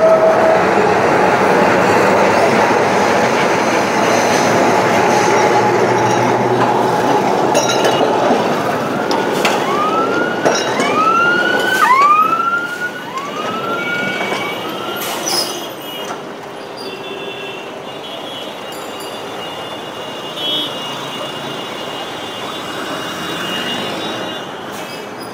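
An old Calcutta tram running on its rails, heard from on board: a loud rolling rumble with some steady tones at first, easing to a quieter, steadier running noise after about sixteen seconds. Midway, a series of about six short rising siren-like whoops sounds over it.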